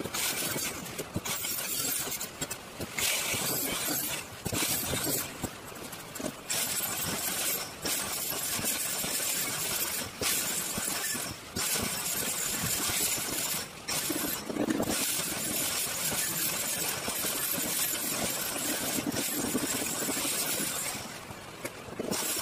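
Handheld electric angle grinder grinding stainless steel tubing, a harsh, hissing grind that breaks off briefly every second or two as the disc is lifted and set back on the metal.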